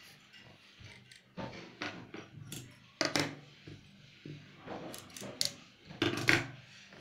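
Cloth and a stiffened belt band being handled and shifted on a sewing machine table: scattered short rustles and light knocks, loudest about three seconds in and again about six seconds in, over a faint low hum.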